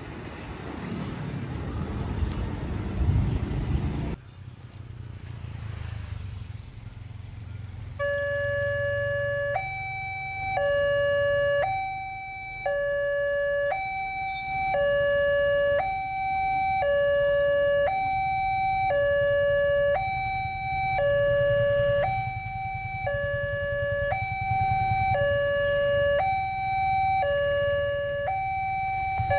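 Railway level-crossing warning alarm: an electronic signal alternating steadily between a lower and a higher note, each held about a second, starting about eight seconds in as the crossing closes for an approaching train. Before it, motorbike traffic at the crossing, cut off suddenly about four seconds in.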